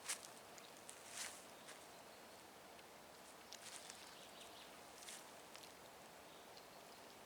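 Near silence outdoors, with a few faint, scattered rustles and clicks: one sharper click right at the start, another about a second in, and a small cluster in the middle.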